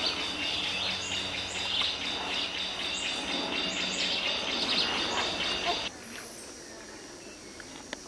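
Dense forest chorus of high-pitched chirps and trills, rapid and overlapping. It cuts off about six seconds in, leaving a fainter steady high hum.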